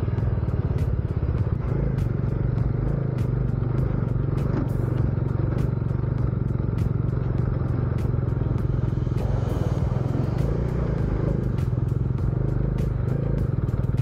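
Motorcycle engine running steadily at low speed on a rough dirt track, with many short clicks and knocks as the bike jolts over the bumps.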